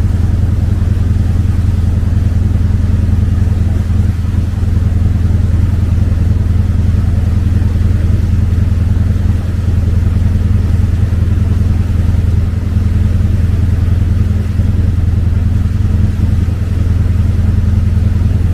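A river passenger boat's engine running at a steady cruise, a deep constant drone heard on board.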